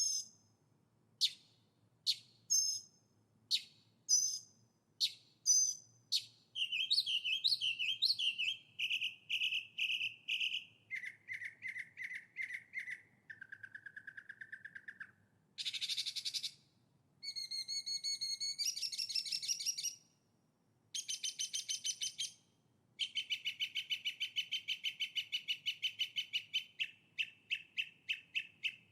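Songbird singing, loud and close: a run of sharp, downward-sweeping chirps in the first six seconds, then a long string of rapid trills that jump between pitches, with a short buzzy phrase in the middle.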